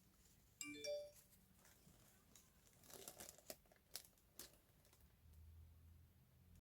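Faint crinkling and rustling of paper die cuts and packaging being handled, with a few light ticks. There is a brief faint pitched sound just under a second in.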